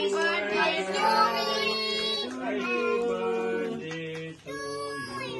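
Children's and women's voices singing a birthday song together.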